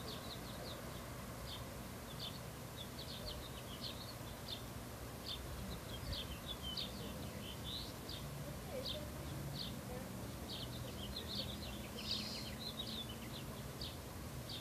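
Small birds chirping: many short, quick high notes in irregular clusters, over a faint steady low hum.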